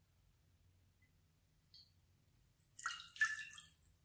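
Sparkling mineral water poured from the bottle, splashing into a cut-glass dish in a short run of splashes starting about three seconds in.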